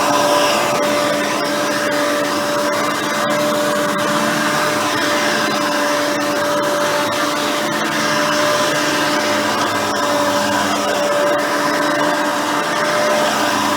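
Hoover Elite 350 upright vacuum cleaner, a 5-amp motor with a seven-blade fan, running steadily: a constant rush of air with a steady whine over it.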